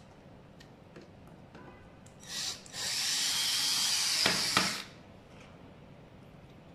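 Cordless drill-driver driving a screw into an electric scooter's deck: a brief blip, then about two seconds of steady running with two sharp clicks near the end as the screw seats.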